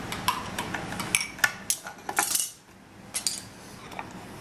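A dinner plate and utensils being handled: a scattered series of light clinks and knocks, with a brief scrape a little over two seconds in.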